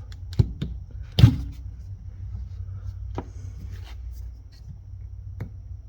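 A few short, sharp clicks and taps, the loudest about a second in, as a screwdriver and pick work at a small retaining clip holding a gear on a Tecumseh engine shaft. A low steady hum runs underneath.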